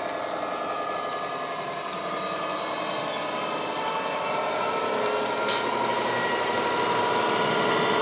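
Sound decoder in a model Class 66 diesel locomotive playing the engine sound of the real Class 66's two-stroke EMD diesel through the model's small speaker, running steadily as the train moves. It gets louder over the last few seconds.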